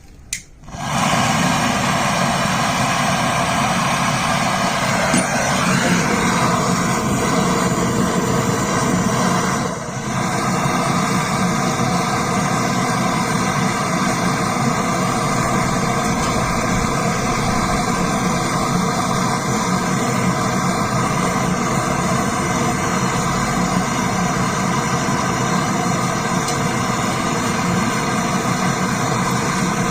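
An electric motor-driven machine, a pump or compressor, is switched on with a click and runs steadily and loudly, with a brief dip about ten seconds in.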